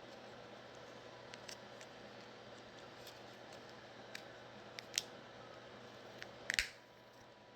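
Small plastic clicks and taps from a Nissan Rogue key fob being handled and snapped back together after its battery change: a few faint ticks, a sharper click about five seconds in, and a quick cluster of clicks near the end.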